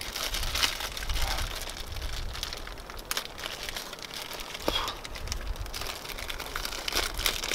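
Small plastic packet crinkling as it is handled and worked at by hand while someone struggles to open it, with scattered small clicks and taps.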